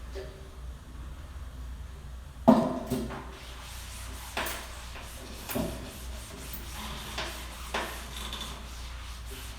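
Household objects being handled during kitchen cleaning: a sharp knock about two and a half seconds in, then a few lighter knocks and rubbing sounds spaced a second or so apart.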